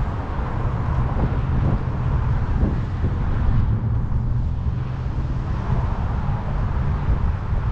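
Wind rumbling on a handlebar-mounted camera's microphone while cycling, over the steady noise of passing car traffic.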